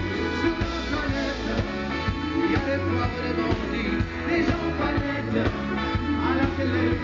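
Live band playing an upbeat song with a steady beat: drum kit, electric guitar, bass and brass, with a singer on a microphone and backing singers.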